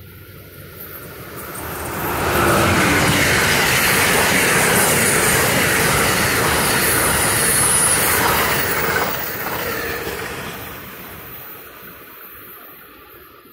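Amtrak passenger train passing through the station at speed: the rush of wheels on rail builds over about two seconds, holds loud for about six, then fades away as the train recedes.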